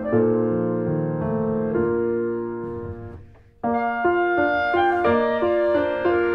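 Background piano music, a slow melody of held, decaying notes; it fades out briefly about halfway through and then starts again.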